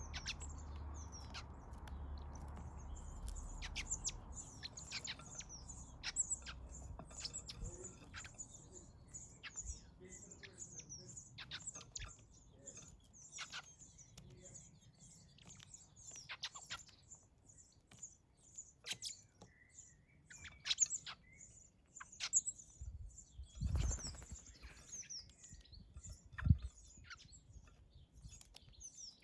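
Garden birds at a feeder chirping: a near-constant run of short, high-pitched calls, with scattered sharp clicks. A low rumble fades out in the first several seconds, and there are two low thumps near the end.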